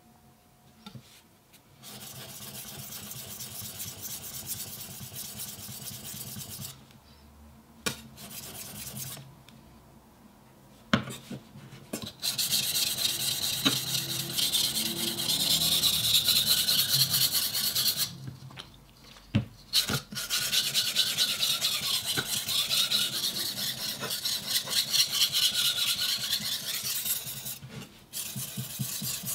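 Sugimoto Japanese kitchen knife being sharpened on a wet 500-grit Shapton Glass whetstone: runs of fast back-and-forth rasping strokes of steel on stone, broken by short pauses, with a few sharp clicks. The stroking starts about two seconds in and gets louder about halfway through.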